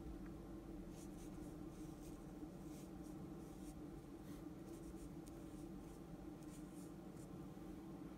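Faint scratching of a brush pen's tip drawing strokes of hiragana across chiyogami paper, in short separate strokes, over a steady low hum.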